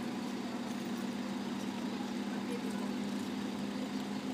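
Steady, even machine hum, like an idling engine, with no change in pitch or level.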